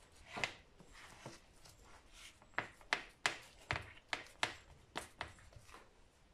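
Red silicone spatula patting and pressing crumbly gur papdi mixture into an aluminium tray: one sharp tap, then a quick run of sharp taps, about three a second, in the second half.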